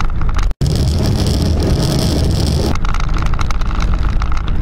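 Steady engine and tyre rumble of a vehicle driving at speed, picked up by a dashcam microphone inside the cabin. The sound cuts out for an instant about half a second in. A hissier stretch follows, and the same rumble returns a little past the middle.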